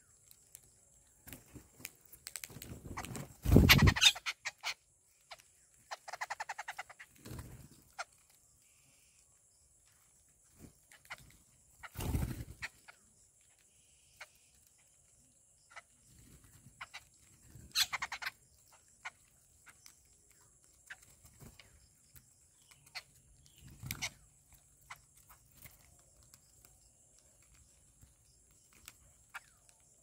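Jungle babblers and common mynas pecking food off a concrete surface: scattered sharp taps, with several louder bursts close to the microphone, the loudest about four seconds in. A short bird call sounds around six seconds in.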